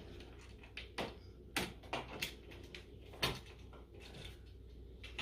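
Light clicks and knocks from handling a wall switch and its wires at an electrical box, about five in the first three and a half seconds, the one near three seconds in the loudest, over a faint steady hum.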